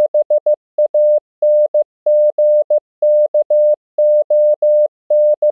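Morse code practice tone: a single steady beep keyed on and off in short dits and long dahs at 15 words per minute. It spells out the world capital BANGKOK (-... .- -. --. -.- --- -.-), letter by letter, with the final dah of the last K running just past the end.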